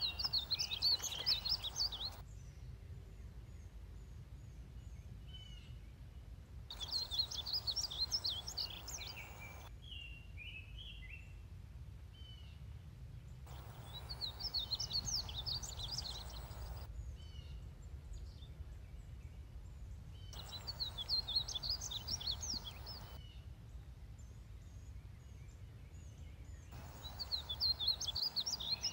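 Male painted bunting singing five high, rapid warbled phrases of about two seconds each, spaced roughly six seconds apart, with a few faint notes between them. A low steady rumble runs underneath.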